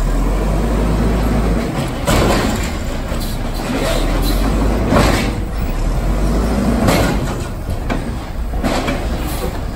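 Mack garbage truck's engine running with a steady low hum, broken by a few short, louder rushes of noise.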